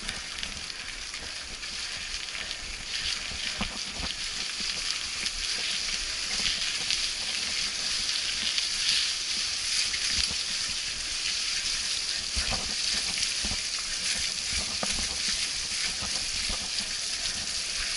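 Bicycle riding down a forest dirt trail: a steady hiss of tyres rolling on the wet dirt and rushing air, with low knocks and rattles as the bike goes over bumps.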